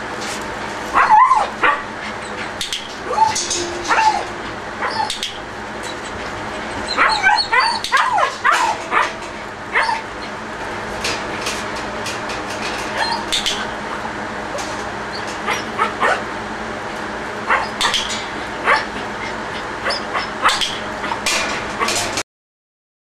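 A ten-week-old German shepherd puppy yipping and whining in short bursts, over a steady hum, with scattered sharp clicks.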